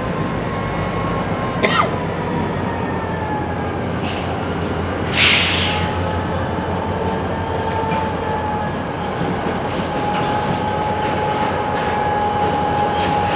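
Railcars rolling through a rail yard: a steady rumble with a thin, high wheel squeal, a sharp clank about two seconds in and a short hiss about five seconds in.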